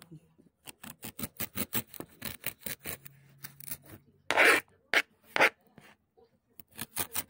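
Kitchen knife chopping a small piece of ginger on a plastic cutting board: quick strokes about four to five a second, with a few louder, longer scrapes of the blade across the board a little past the middle.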